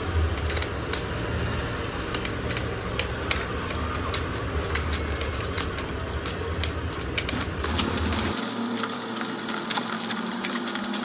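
Fingers pressing and tearing thick, clay-like slime, making quick sticky crackles and clicks. About eight seconds in, a low hum drops out and the crackles grow denser as a foamy slime is squeezed.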